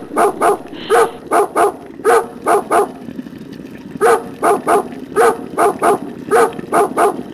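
A dog barking in quick runs of three, about three barks a second, with a pause of about a second near the middle.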